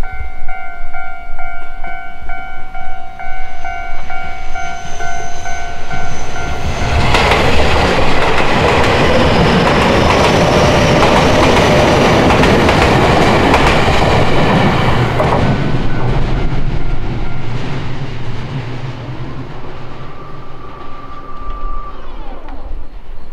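Railway level-crossing warning bell ringing steadily, then a train passing at speed with a loud rush of wheels and carriages from about seven seconds in, fading away after about fifteen seconds.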